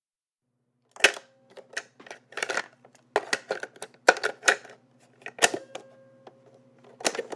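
A run of about a dozen irregular sharp clicks and knocks, starting about a second in, over a faint steady hum.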